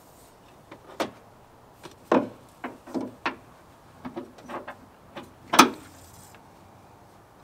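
Hood gas strut's socket end being pushed onto its ball-stud mount: a series of short clicks and knocks of the fitting and hood hardware, ending in one sharp, louder snap about five and a half seconds in as the end seats on the stud.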